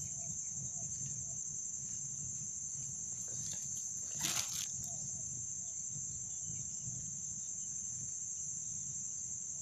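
Insects trilling steadily at one high pitch over a low rumble, with a brief noise about four seconds in.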